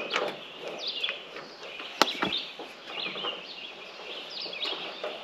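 Small birds chirping repeatedly in short calls, with a single sharp click about two seconds in.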